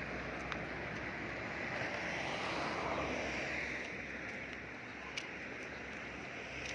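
A vehicle passing on the road, its noise swelling to a peak about three seconds in and then fading, over steady outdoor background noise.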